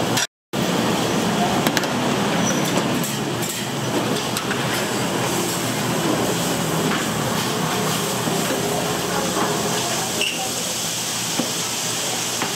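Steady hiss of a busy kitchen, with people talking in the background.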